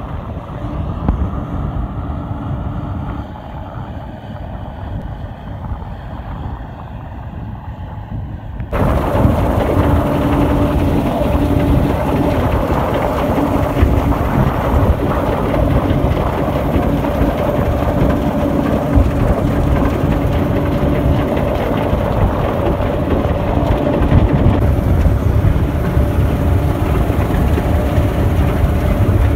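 John Deere W70 combine harvester running while it cuts wheat: steady engine and threshing-machinery noise. About nine seconds in it switches from the machine heard from the field to a much louder, close noise from on board, with a steady hum.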